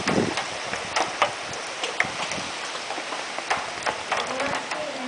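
Heavy storm rain falling steadily as an even hiss. Drops strike close to the microphone in scattered sharp ticks.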